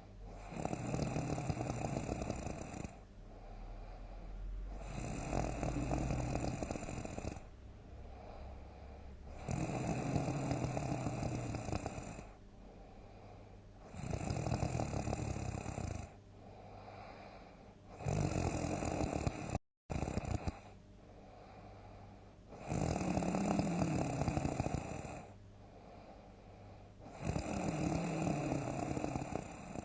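A person snoring loudly, seven long snores coming about every four to five seconds, each lasting two to three seconds, with quieter breathing in between. The sound cuts out completely for an instant about two-thirds of the way through.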